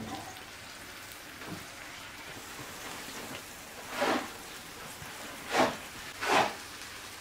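Steady sizzling of frying in a wide pan, broken by three short, louder swishing bursts about four, five and a half and six and a half seconds in, as handfuls of chopped greens are pushed off a wooden board into the hot pan.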